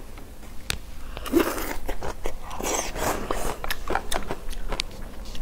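People eating at a table: noodles slurped in two longer hissy pulls, with chewing and short clicks of chopsticks against bowls and plates.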